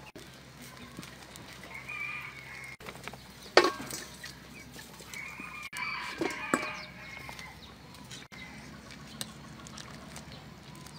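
A metal skimmer working pork ribs in a wok, with a sharp loud clink of metal on the pan about three and a half seconds in and smaller knocks a few seconds later. Animal calls, bird-like, come in the background twice, the second one longer.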